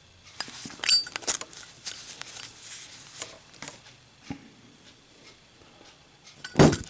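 Metal Zippo lighters clinking and clicking as they are handled, then one dropped, hitting with a loud clatter and thud near the end.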